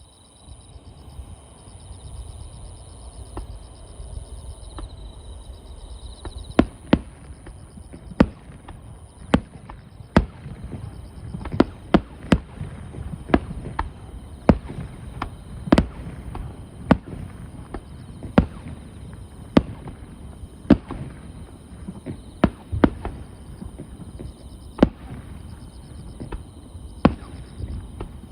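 Fireworks going off, a run of sharp bangs about once a second from a few seconds in, over a low rumble. Insects trill steadily throughout.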